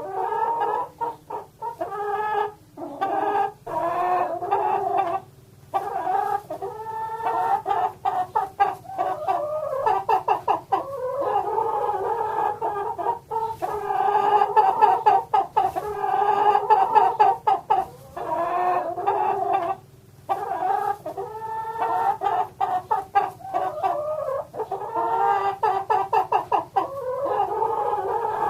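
Chickens clucking in long runs of short, rapid clucks, with a few brief pauses.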